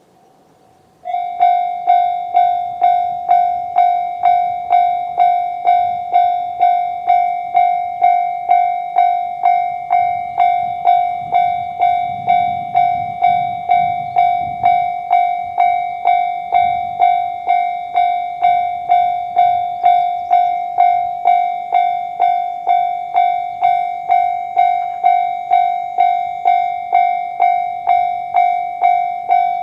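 Japanese railway level-crossing warning bell, the electronic JR standard sound, starting about a second in and dinging in a fast, even, unbroken rhythm: the crossing has been activated for an approaching train.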